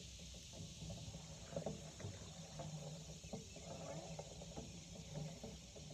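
Faint, indistinct voice muttering over a steady low hum and hiss.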